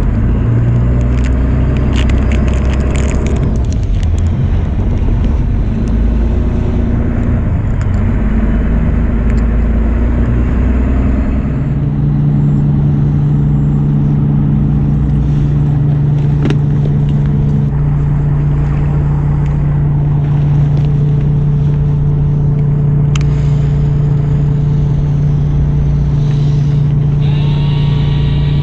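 Fishing boat's engine running with a low rumble; about twelve seconds in its note settles into a steady hum. A higher steady whine starts near the end.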